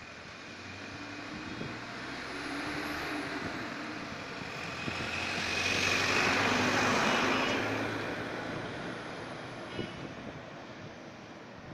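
A passing vehicle: a rushing engine noise that swells slowly to its loudest about six to seven seconds in, then fades away.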